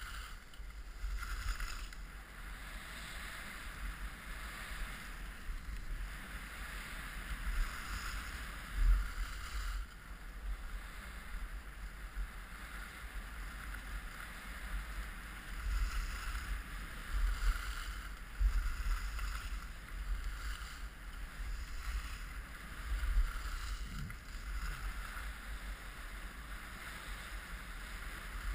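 Skis sliding over groomed snow, a steady hiss that swells and fades, under wind buffeting the microphone in low gusts.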